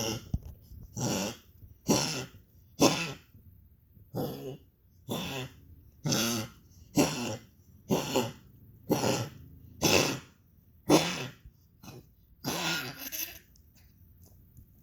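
A dog coughing in a long fit: about a dozen coughs roughly a second apart, the last one drawn out, then stopping about 13 seconds in.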